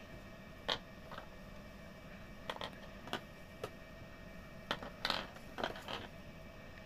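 Small plastic pieces of a 4D Puzzle ZOO DX giant tortoise model clicking against one another as hands try to fit them together: a dozen or so light, irregular clicks, bunched most closely about five seconds in.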